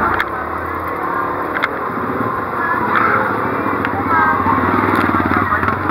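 Busy street traffic: motor vehicle and motorcycle engines running close by, steady throughout, with a few sharp clicks.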